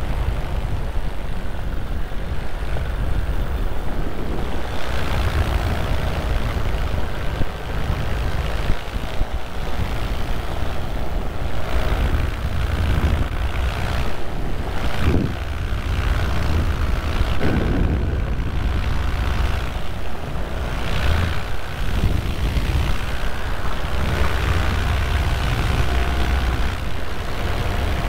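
Vittorazi Moster 185 single-cylinder two-stroke paramotor engine running steadily in flight, pushing its propeller, with a heavy uneven wind rumble on the microphone.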